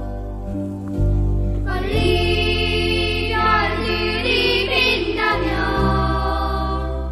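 Instrumental passage of a Korean pop ballad: held bass notes and chords, with a melody line that sings out with vibrato from about two seconds in until about five seconds in.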